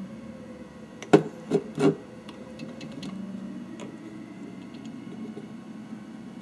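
Three sharp knocks of hard 3D-printed plastic parts being handled and set down on a workbench, about a second in and close together, then a few faint ticks, over a steady low hum.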